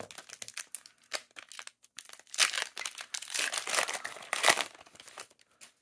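Foil wrapper of a Pokémon 151 booster pack crinkling and tearing as it is ripped open by hand, with louder crackling in the second half that dies down near the end.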